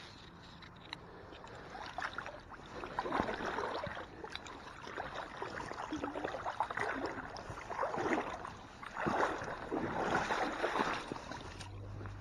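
Water splashing and sloshing in irregular surges as a hooked brown trout is drawn into a rubber-mesh landing net in shallow creek water.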